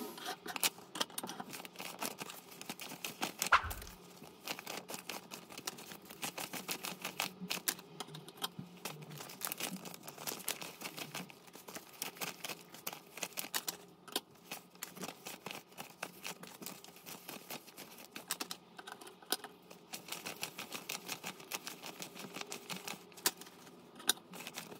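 Rapid, irregular light clicks and taps from hands handling things on a tabletop, with a single low thud about three and a half seconds in.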